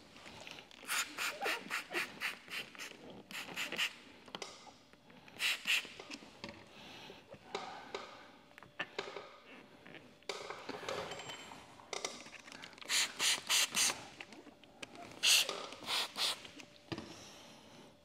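Spray bottle squirting tack solution under the lifted edge of paint protection film to flush out the soapy slip solution, in several runs of quick squirts: a long run of about seven near the start, then shorter runs of two to five. Light handling of the film and squeegee in between.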